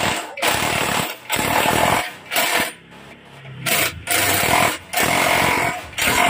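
Cordless impact wrench hammering on a front brake caliper mounting bolt of a scooter, in repeated bursts about half a second to a second long with short pauses between them.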